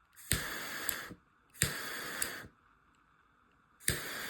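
Butane jet torch lighter fired three times in a row: each time a sharp ignition click, a hiss of the torch flame lasting under a second, and a click as it is let go.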